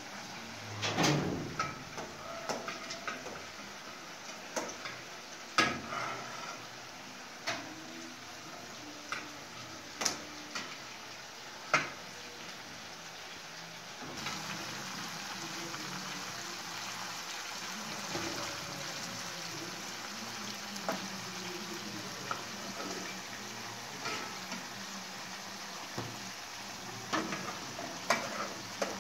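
Rabbit meat and onions sizzling in a frying pan on a gas stove, with a spatula scraping and knocking against the pan every second or two. The sizzle gets a little louder about halfway through, and near the end a spoon clinks in a steel pot.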